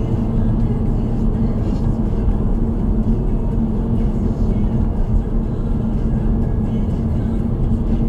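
Steady drive noise from inside a moving car: a low, even rumble of tyres and engine with a constant drone running under it.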